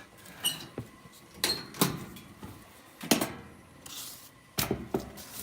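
A series of separate sharp knocks and clunks, about half a dozen, a couple of them with a short high ringing tone. No steady motor hum or whine can be made out.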